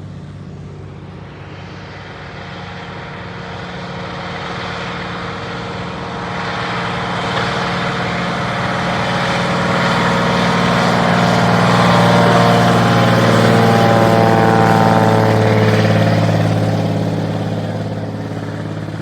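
Floatplane's piston engine and propeller passing close by: a steady drone that grows louder to a peak about two-thirds of the way through, drops in pitch as it goes by, then fades.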